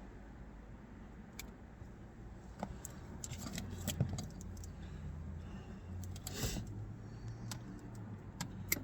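Speaker wire being cut and stripped with hand tools: scattered small clicks and snips, with a short rasp about six and a half seconds in, over a faint low hum.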